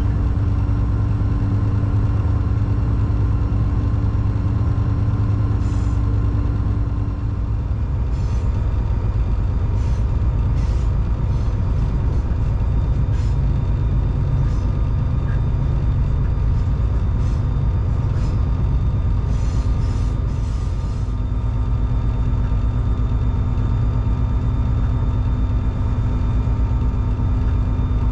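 EMD SD40-3 diesel-electric locomotive's 16-cylinder two-stroke diesel engine running steadily under way, over a rumble of wheels on rail. Its tone shifts slightly twice, and there are scattered light clicks in the middle stretch.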